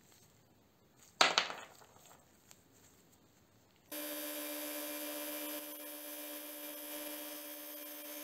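A single sharp knock about a second in, then a bench belt grinder's electric motor and belt running steadily with no work on the belt, a constant hum with a hiss over it, starting abruptly about four seconds in.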